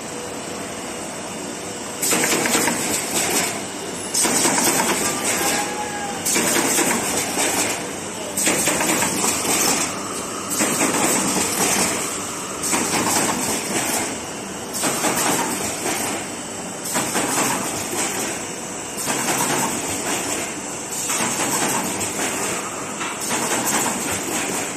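Automatic corrugated box partition assembly machine running, with a loud noisy cycle that starts about two seconds in and repeats about every two seconds.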